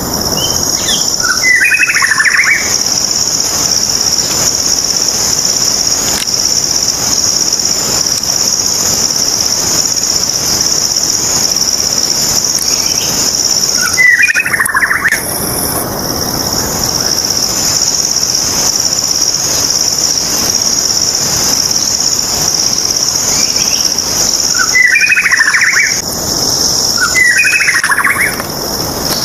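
A continuous high-pitched insect drone, with a white-rumped shama singing short phrases over it four times: once near the start, once about halfway, and twice near the end.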